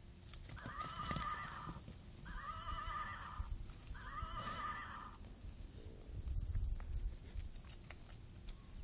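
A toy horse's electronic neigh: the same high, wavering whinny is played three times in a row, each about a second long, followed by a low rumble with a few knocks.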